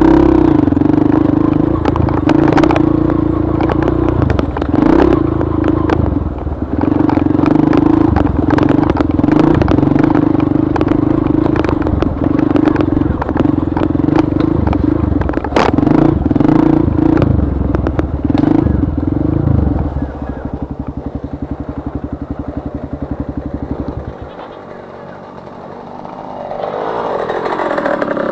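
Trail motorcycle engine running steadily under way, with many sharp knocks and rattles as the bike goes over rough, rocky ground. About twenty seconds in it settles to an even, pulsing low-speed running, drops quieter a few seconds later, then swells again near the end.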